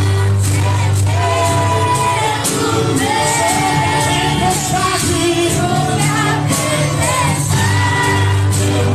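Live Christian worship song in Portuguese: singers over a full band, with a steady bass line and regular drum and cymbal hits.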